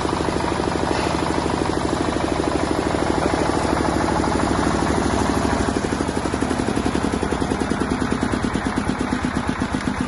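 Diesel engine of a 10 kVA Bajaj M open-type generator set running with a rapid, even firing beat. About halfway through the beat slows and becomes more distinctly separated, as the engine speed drops.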